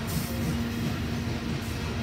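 Coal cars of a long freight train rolling past: a steady rumble of steel wheels on the rails, with a low steady hum that fades near the end.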